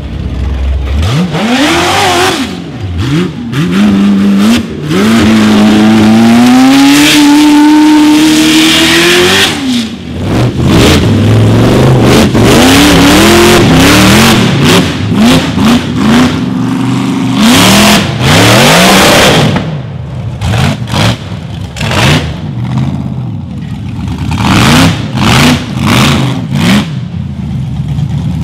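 Rock bouncer buggy's engine revving hard under load in repeated bursts, its pitch climbing and dropping again and again. In the second half, sharp cracks and bangs come between the revs.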